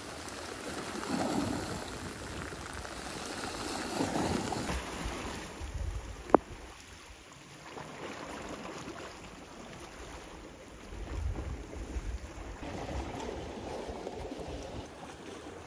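Sea waves washing against a rocky shore, with wind gusting on the microphone in low rumbles. A single sharp click cuts through about six seconds in.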